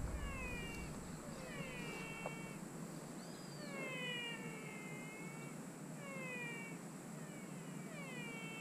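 Frogs calling in chorus: a series of falling, meow-like calls, one every second or two, overlapping one another.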